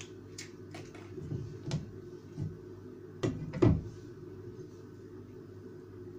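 A few short knocks and clacks on the tabletop, the loudest two close together about three and a half seconds in, as a wooden-handled kitchen knife is set down beside the jar. A steady low hum runs underneath.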